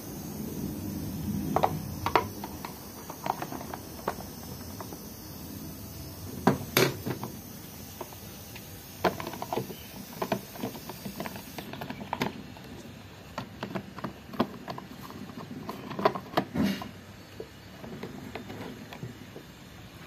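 Plastic clicks and knocks as the parts of an Arno standing fan are handled: its motor housing, grille and blades. A scattering of sharp clicks, with a few louder ones among them.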